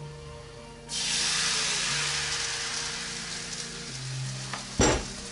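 Pancake batter poured into a hot frying pan, setting off a sudden loud sizzle about a second in that slowly dies down as the batter sets. A short knock near the end.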